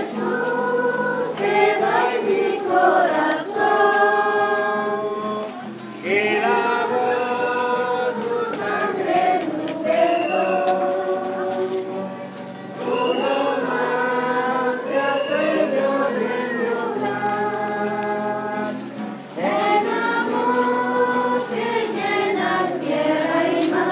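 A group of voices singing a hymn in long, held phrases, with a short break between phrases about every six seconds.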